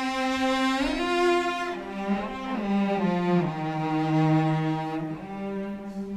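Orchestral string section playing the slow, melancholy theme of a Shaanxi folk song. A low melody, carried by the cellos, slides between some of its held notes.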